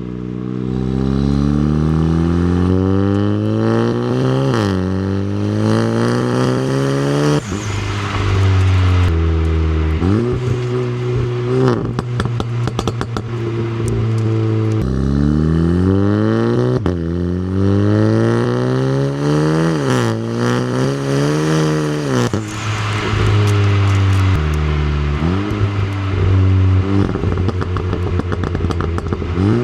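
Turbocharged Volkswagen four-cylinder engine and exhaust pulling hard through the gears: the pitch climbs steadily, drops sharply at each shift, and climbs again, over and over. Crackles and pops come around the shifts.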